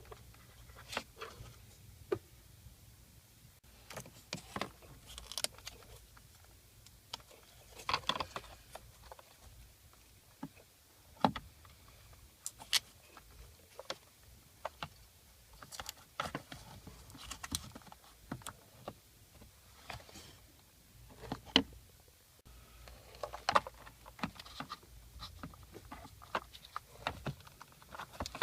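Irregular clicks, taps and light rattles of parts and hand tools being handled, coming singly and in short clusters over a faint low hum.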